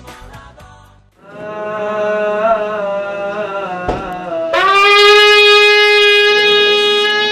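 A shofar sounds one long, steady blast starting about four and a half seconds in. Before it comes a softer, wavering pitched sound, and a music track fades out in the first second.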